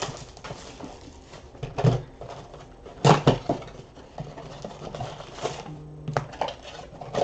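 Cardboard trading-card boxes handled and set down on a table: scattered knocks and taps, with a cluster of sharper knocks about three seconds in.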